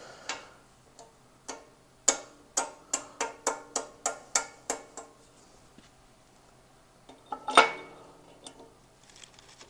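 A run of light metallic taps, each with a short ring, about three a second, then a single louder metal knock near the end. The taps come from hands and tools on an aluminium motorcycle crankcase while a cam bearing that went in crooked is reset.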